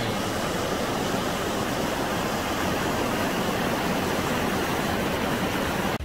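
Snowmelt mountain stream rushing over rapids: a steady, even rush of white water.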